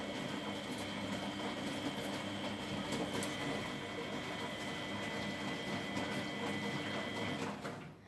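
Miele front-loading washing machine turning its drum to tumble the wash: a steady motor whine over a low hum, which cuts out about seven and a half seconds in.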